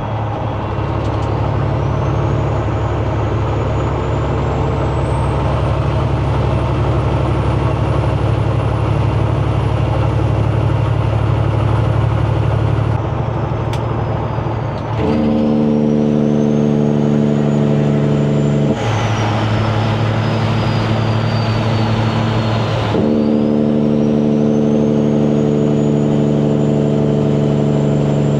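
Semi-truck diesel engine running through 8-inch straight stacks, with a high turbo whistle climbing steadily for the first dozen seconds and then cutting off. About halfway in the exhaust note turns louder and fuller; the whistle rises, falls away for a few seconds, then rises again.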